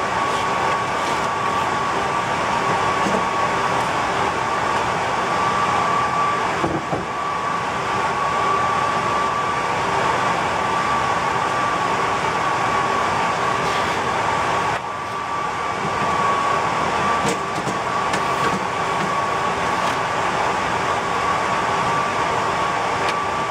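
Steady whir of running server-rack equipment cooling fans, with a constant high-pitched whine over the noise. A few faint knocks come from handling the battery pack.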